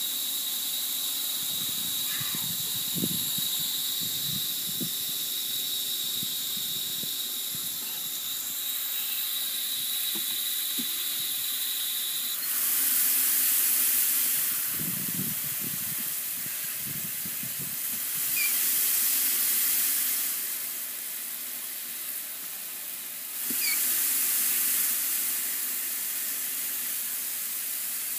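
Water spraying from an outdoor shower's handheld nozzle, a steady hiss with a high thin whistle that stops about halfway through. After that the spray gets louder three times, for a couple of seconds each, as the nozzle's valve is worked.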